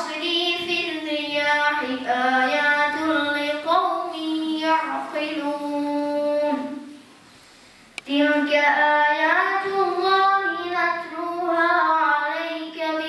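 A boy's voice chanting a Quran sura in Arabic recitation into a microphone: two long melodic phrases, with a pause of about a second between them.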